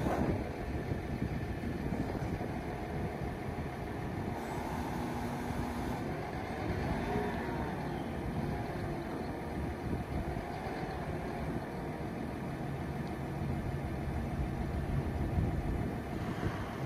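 Cat 926M wheel loader's diesel engine running steadily while the lift arms and coupler are worked. A whine rises and falls in pitch several times about six to nine seconds in.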